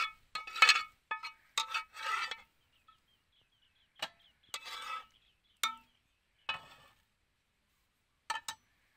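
Metal spoon clinking and scraping against a ceramic plate: a quick run of ringing clinks in the first two seconds, then single clinks every second or so, with a pair near the end.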